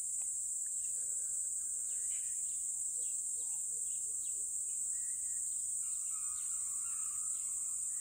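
Steady high-pitched drone of insects, with faint bird calls over it: scattered short chirps, a quick series of low notes about halfway, and a longer call near the end.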